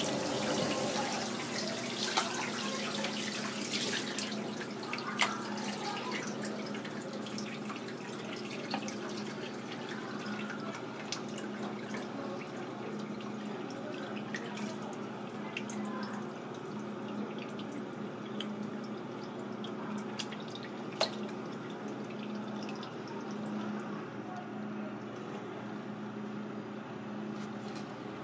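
Water running and dripping in a kitchen sink over a steady low hum, louder in the first few seconds. Now and then a knife clicks sharply on a plastic cutting board as a cuttlefish is sliced and skinned.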